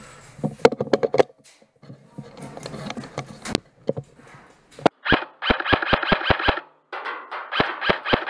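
Airsoft rifle firing two quick strings of shots, about five a second, from inside a metal shipping container, with rustling and knocks of gear before them.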